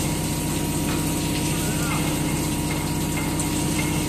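ALLES CNC ALCX52Y turning-and-milling machine running a cut: a steady hum from the spindle and drives under the hiss and splash of the coolant jet pouring over the spinning workpiece.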